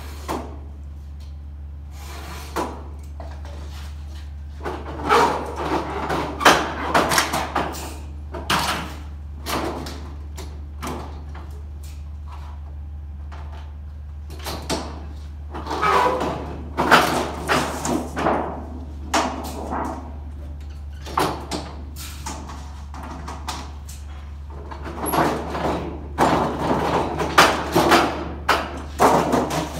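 Portable sheet-metal brake worked by hand to bend aluminium trim coil: clusters of sharp metal clanks and rattles as the clamp and bending leaf are swung and the thin sheet is handled. There are three main spells of clanking with quieter pauses between, over a steady low hum.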